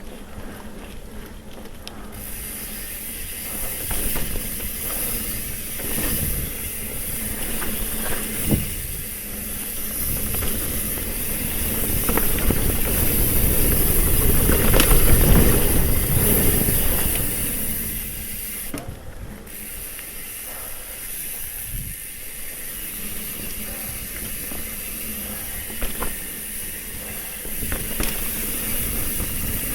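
Full-suspension mountain bike ridden along a dirt trail: steady wind rush on the microphone, tyres rolling over dirt and sharp clicks and knocks of the bike rattling over bumps, swelling to its loudest about halfway through.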